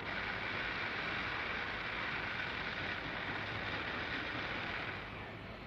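Steady assembly-line machinery noise: a continuous rushing hiss over a low hum, dropping away near the end.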